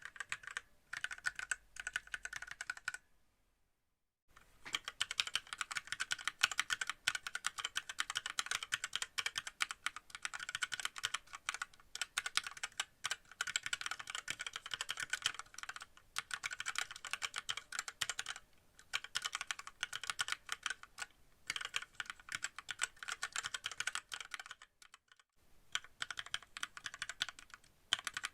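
Fast, continuous typing on a WENRUI WR63 mechanical keyboard with red linear switches, its switches for the most part stock and unlubricated. The typing stops briefly twice: about three seconds in and again near the end.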